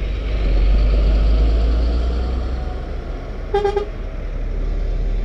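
Heavy diesel lorry engines rumbling as a DAF low-loader truck pulls past close by, loudest in the first two seconds. About three and a half seconds in, a vehicle horn gives a short toot.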